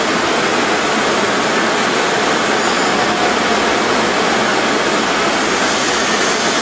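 TIG welding arc burning on stainless steel under an automatic seam welder: a steady, even hiss with no breaks.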